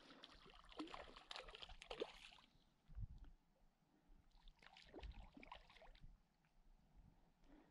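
Faint splashing and sloshing of a hooked wild brown trout thrashing at the surface of the loch, in two bouts: one at the start and another about four and a half seconds in, with a couple of low thumps between.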